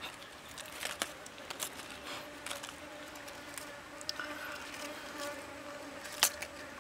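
A flying insect buzzing with a steady, even drone, over faint scattered clicks. About six seconds in, a spoon knocks once against the soup bowl.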